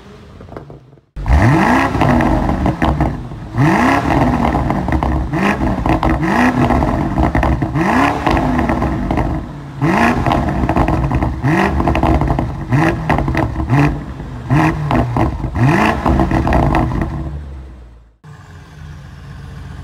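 BMW 850i G14's 4.4-litre twin-turbo V8 through a custom sports exhaust, blipped again and again at a standstill. Starting about a second in, there are roughly a dozen quick revs, each rising and falling, with crackles on the overrun between them. The sound dies away near the end.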